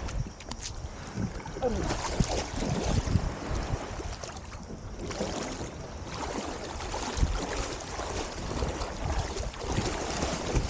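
Water splashing and lapping against a kayak's hull, with wind buffeting the microphone and occasional small knocks.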